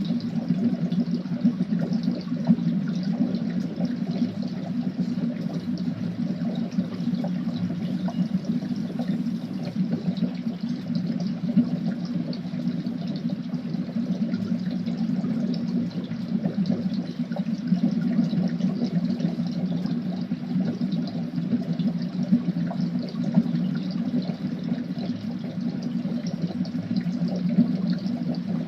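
Cauldron of liquid bubbling steadily: a continuous churning gurgle full of small pops.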